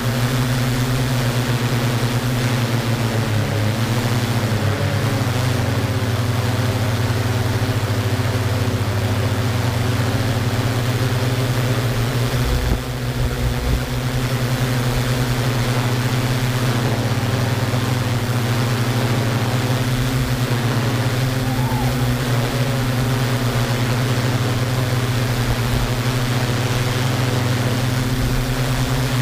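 Yuneec Q500 quadcopter's electric motors and propellers running with a steady hum as it hovers, with a brief dip in level about halfway through.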